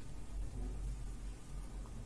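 Steady low room hum with faint handling clicks near the end as small scissors and a crochet piece are picked up.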